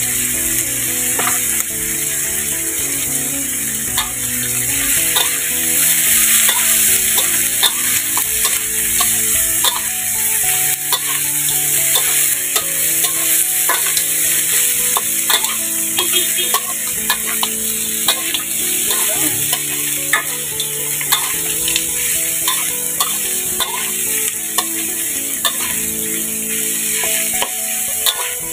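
Meat and spices sizzling in hot oil in a wok while a metal spatula stirs them, with many small scrapes and taps of the spatula against the pan.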